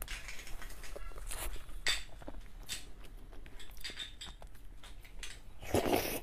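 Close-miked eating of soft, creamy cake with a spoon: a run of short irregular clicks from the spoon against the plate and wet mouth and lip sounds, with a louder one near the end.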